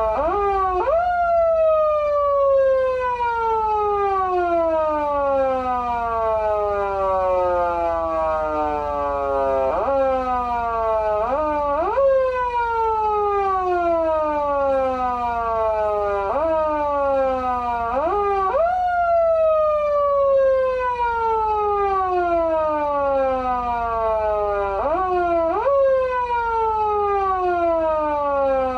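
Electronic foot siren from a Patlite SAP-500BK-PV siren amplifier, imitating a motor siren: each press of the foot switch makes the wail rise quickly in pitch, and it then slides slowly down. It is retriggered about ten times at uneven intervals, sometimes several times in quick succession.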